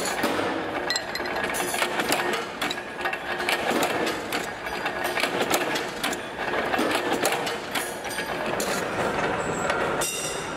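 Power press in a steel workshop running, with dense, irregular metallic clanks and knocks as steel sprocket blanks are fed onto the die and handled, over a steady machine din.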